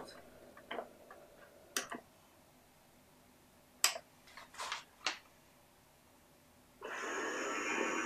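Dirt Devil Spider M607 robot vacuum being restarted by hand: a few short plastic clicks and taps, then about seven seconds in its motor and brushes start running steadily with a high whine.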